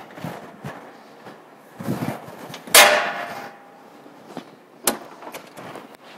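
Metal handling noises from a Haulotte LiteRiser 10SP as its battery tray is swung out: one loud clank a little under three seconds in that rings on for about a second, and a sharp click about two seconds later.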